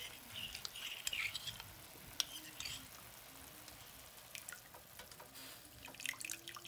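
A metal spoon clinking and scraping against a small ceramic ramekin while cornstarch and water are stirred into a smooth paste, with one sharp clink about two seconds in. It then turns quiet, and a few more small clicks come near the end.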